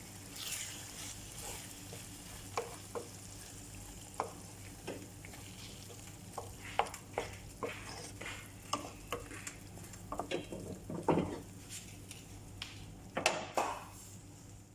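Spatula scraping and knocking irregularly against a frying pan as cooked ground meat is stirred, over a steady faint sizzle from the pan.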